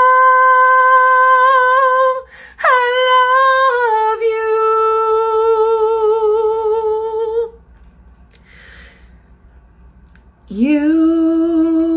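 A woman singing unaccompanied, holding long notes. One held note breaks off about two seconds in, and after a quick breath a second note with a slight vibrato runs on for about three and a half seconds. After a pause of about three seconds she starts a new, lower phrase near the end.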